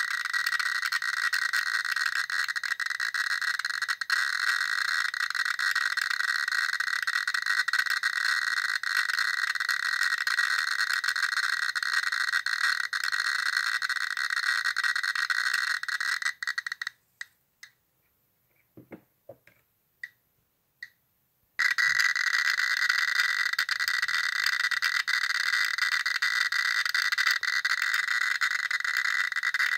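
Geiger counter clicking so fast, at about 5,000 counts per minute from radioactive thorianite, that the clicks merge into a dense steady crackle. About halfway through it cuts out for some five seconds, leaving only a few scattered single clicks, then the crackle resumes.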